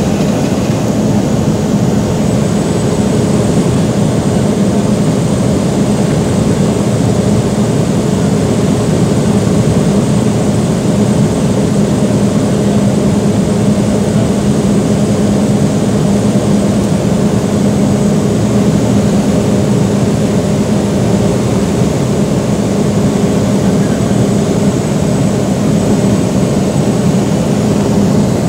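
Steady cabin drone of a small high-wing, strut-braced propeller aeroplane's engine and propeller in flight, heard from inside the cabin. It is an even, loud hum with a strong low note and a faint thin high whine above it.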